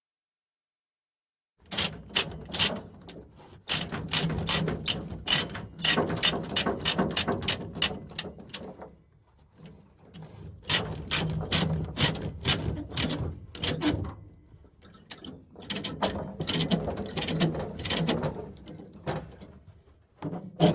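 Ratchet chain binder being cranked, its pawl clicking at several clicks a second in runs with short pauses between them. This is the sound of a chain being drawn tight. It starts after about a second and a half of silence.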